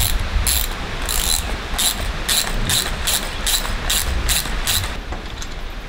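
Ratchet wrench working back and forth, about a dozen quick ratcheting strokes at roughly two and a half a second, stopping about five seconds in, as it tightens the bolts of a stop/brake block clamped onto a steel zipline cable.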